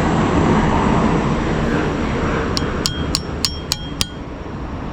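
Six light metallic clinks in quick succession, about three or four a second, each with a short ringing note, as metal scrap parts are tapped or knocked together. A steady rumbling background runs underneath and eases off partway through.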